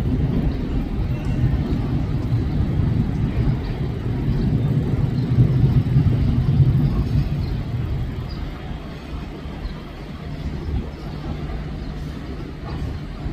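DB class 628 diesel railcar running as it pulls away, a low engine rumble that swells about halfway through and then fades.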